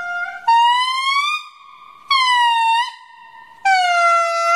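Indri lemur singing: a series of loud, siren-like wailing notes about a second long each, the first rising in pitch and the later ones falling. Fainter held notes fill the gaps between them.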